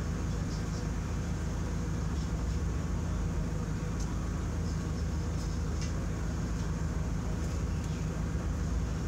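A steady low machine hum, with a few faint light clicks over it.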